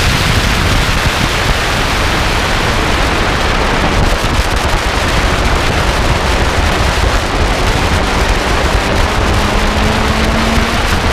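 Lotus sports car at racing speed: a loud, even rush of wind and road noise covers most of the engine. A faint engine tone can be heard rising slightly near the end.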